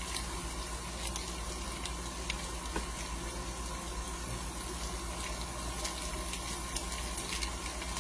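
Sliced potatoes frying in a pan: a steady sizzle with scattered small pops and crackles.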